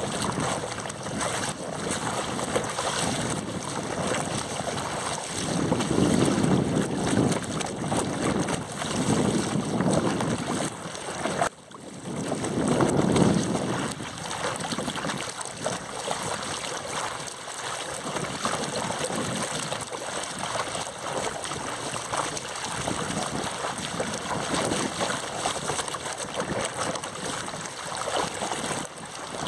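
Water rushing and splashing past a camera sled towed at the surface, mixed with wind on the microphone, swelling louder twice and cutting out for a moment about eleven and a half seconds in.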